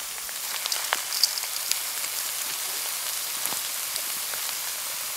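Pork pieces frying in a hot pan: a steady sizzling hiss with scattered small crackles and pops.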